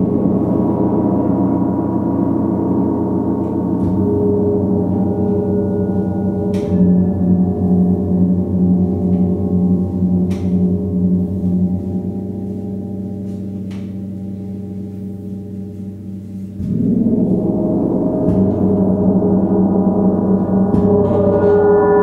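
Large suspended gongs ringing in a dense wash of overlapping tones, the low tone throbbing about twice a second. The sound slowly fades, then a fresh stroke about 16 seconds in brings it sharply back up.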